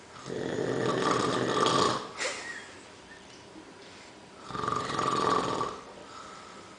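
A man snoring: two long snores a few seconds apart, each lasting a second or two.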